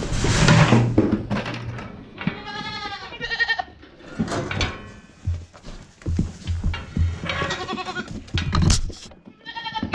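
Boer goat kids bleating several times, in quavering calls, with short knocks and thumps of goats in the metal gates and scale.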